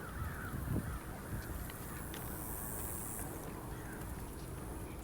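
Wind rumbling on the microphone, with a few faint bird calls.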